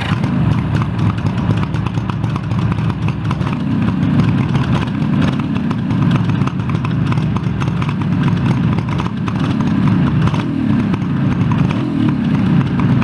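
1975 Suzuki GT750 liquid-cooled three-cylinder two-stroke engine running, its pitch rising and falling a few times as the throttle is worked.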